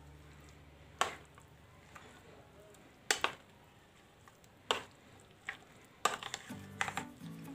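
White spoon stirring yogurt raita with grated carrot in a paper bowl: a few separate sharp clicks and taps of the spoon in the bowl, coming much more often near the end.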